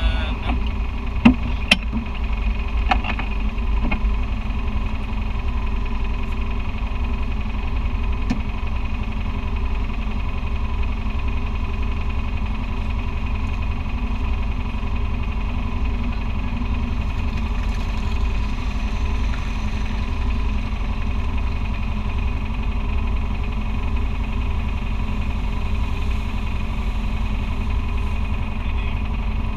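Side-by-side UTV engine idling steadily, with a few sharp knocks in the first couple of seconds.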